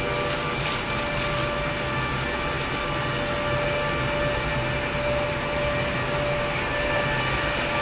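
Steady whirring hum with a thin, constant whine from the running cooling fan of a 100 W pulsed laser rust-cleaning machine. Plastic packaging crinkles during the first second and a half.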